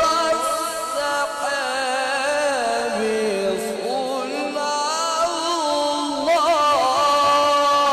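A man reciting the Quran in the melodic chanted style. He holds long notes that slide smoothly between pitches, with a quick wavering ornament a little after six seconds in, then a long held note near the end.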